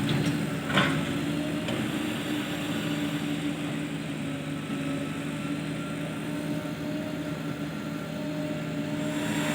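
Diesel engine of heavy machinery running steadily, with a short knock just under a second in.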